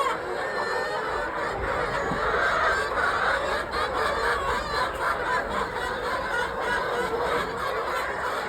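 A large flock of poultry clucking and calling over one another in a continuous din, typical of chickens crowding in at feeding time.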